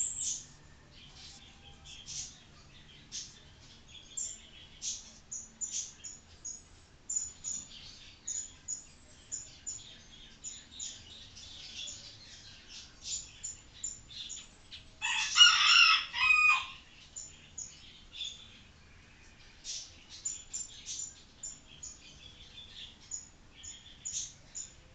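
Felt-tip marker drawing lines on a whiteboard: a steady series of short, high, scratchy strokes. About fifteen seconds in, a loud bird call rings out once for about a second and a half.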